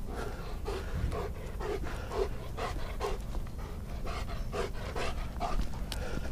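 German shepherd panting in short, even puffs about twice a second as it works on the lead, over a steady low rumble.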